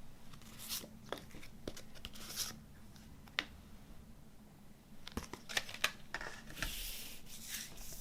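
A CD's plastic wrapping being torn and crinkled off by hand, with scattered sharp clicks and short rustles, and a longer stretch of crinkling near the end.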